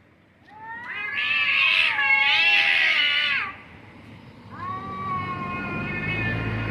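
Domestic cats yowling. A long, wavering yowl starts about half a second in and lasts about three seconds with a brief break in the middle, then a second drawn-out, steadier call begins about four and a half seconds in.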